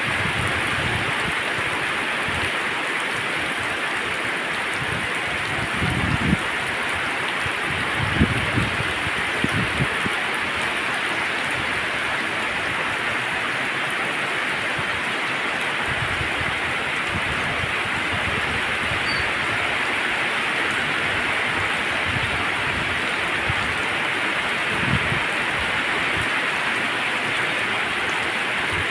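Heavy tropical downpour, rain hissing steadily on a flooded road and wet grass. A few brief low rumbles come about six, eight to ten and twenty-five seconds in.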